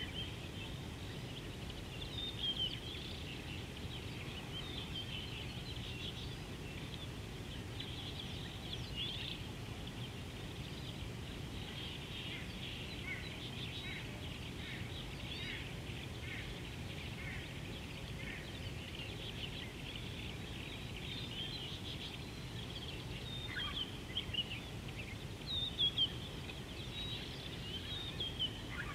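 Several small birds chirping and trilling almost without pause, over a steady low background rumble; a few louder calls come near the end.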